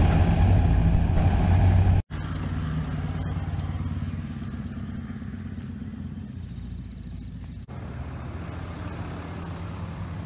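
Four-wheel-drive truck engines running steadily at low revs, heard across short clips. The sound cuts off abruptly about two seconds in and again after about seven and a half seconds. The first clip is the loudest.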